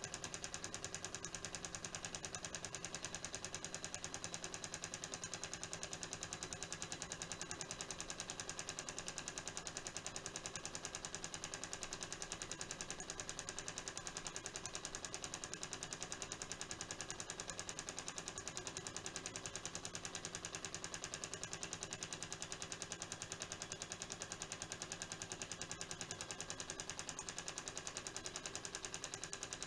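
Small tea-light-fired model Stirling hot-air engine running at a steady speed, its linkages and flywheel making a rapid, even clatter of mechanical ticks.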